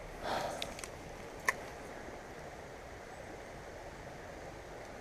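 Faint steady flow of river water, with a brief rustle near the start, a couple of light clicks, and one sharp click about a second and a half in.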